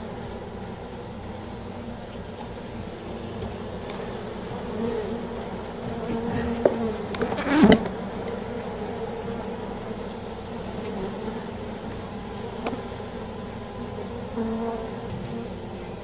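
A colony of honey bees on exposed comb, buzzing in a steady hum. A brief knock sounds about halfway through.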